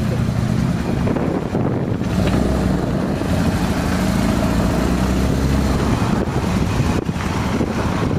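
Motorcycle engines running at low speed, with wind rumbling on the microphone.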